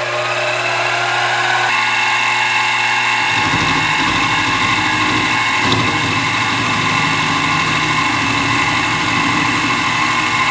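King Canada KC-20VS-2 milling machine with a half-inch 4-flute end mill cutting brass bar stock. The spindle's whine rises in pitch over the first two seconds, then holds steady. About three seconds in, a lower, rougher cutting noise joins it and carries on while brass chips are thrown off.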